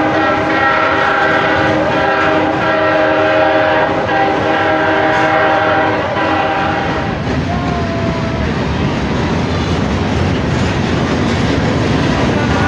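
Freight train rolling past, its autorack cars and boxcars clattering over the rail joints with steady wheel noise. Over roughly the first seven seconds a cluster of sustained ringing tones sounds above it, then fades.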